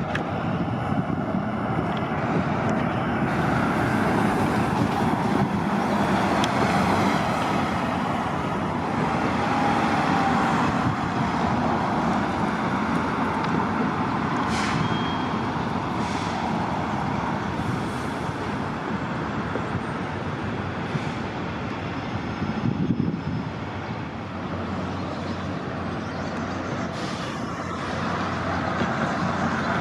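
City transit buses running and moving through a bus terminal, with steady engine and traffic noise and a few short hisses of air partway through.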